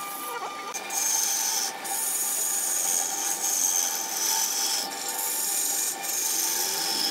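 Turning chisel cutting into a spinning wooden spindle on a wood lathe: a loud scraping hiss of shavings peeling off the wood. It starts about a second in and goes on in long passes broken by a few short pauses.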